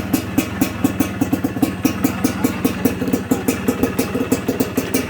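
Yamaha DT125 two-stroke single-cylinder motorcycle engine, fitted with a Boyesen reed valve, idling steadily with an even beat of about five pulses a second.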